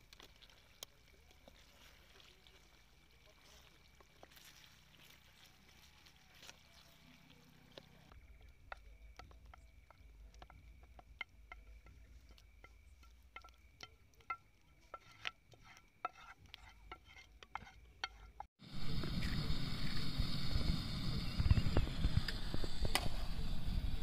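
Quiet cooking sounds: stirring in a pan, then a run of light clicks and scrapes of a spoon as chicken and rice are mixed in a plastic box. About three quarters of the way in, a sudden cut to much louder outdoor sound: an uneven low rumble of wind on the microphone with a steady high hiss.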